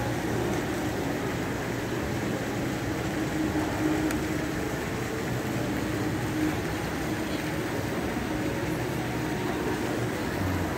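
Steady background din of a large indoor shopping-centre atrium: a constant wash of noise with a faint low hum, at an even level throughout.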